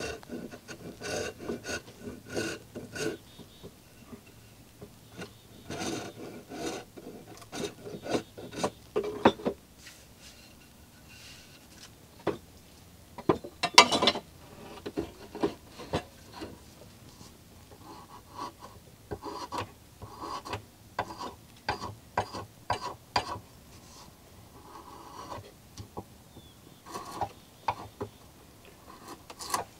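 Drawknife shaving a wooden maul clamped in a shaving horse: groups of short scraping strokes with pauses between them, and one louder stroke about halfway through.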